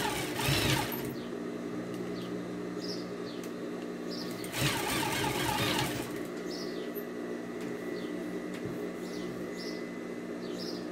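Domestic sewing machine stitching in two short runs of about a second each, one at the start and one about halfway through. Small birds chirp in the background.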